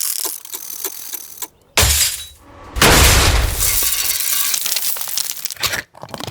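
Foley sound effects in quick succession: crackling clicks, a sudden hit about two seconds in, then a loud crash about three seconds in followed by about three seconds of rattling, as many small pieces clatter and scatter.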